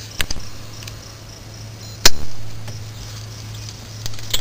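Rear drum brake hardware being worked with tools: a sharp metal click just after the start and a loud metal snap with a short ring about two seconds in, as a brake spring is stretched into place. A steady low hum runs underneath.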